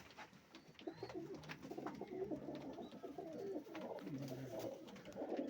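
Domestic pigeons cooing: low, repeated coos.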